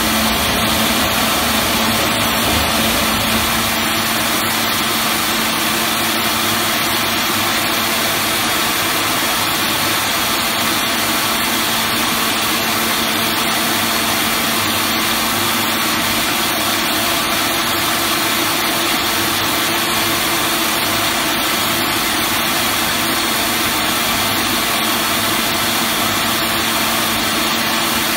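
Veneer peeling production line machinery running: a steady, even mechanical hum with hiss from the line's motors and conveyors, with no knocks or changes.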